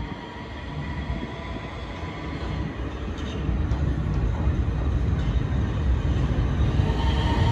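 An R160 subway train's wheels and motors rumbling as it approaches along the tracks, growing steadily louder.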